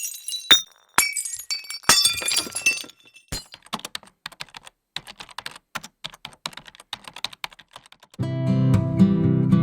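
Sound-effect clips played one after another: sharp, bright clinks for the first three seconds, then rapid irregular clicking like typing on a computer keyboard, then acoustic guitar strumming that starts about eight seconds in.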